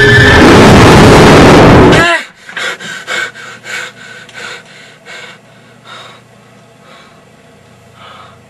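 A loud rushing noise cuts off abruptly about two seconds in. A person then pants heavily in short breaths that slow down and grow fainter.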